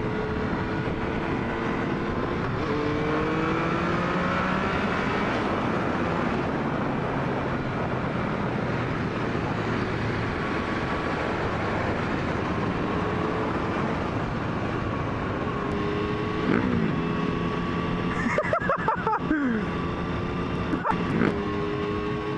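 Triumph 1050 naked motorcycle's three-cylinder engine under way, with wind rush: the revs climb early on, hold steady, then drop and pick up again several times near the end as it shifts gears, with a few sharp clicks among them.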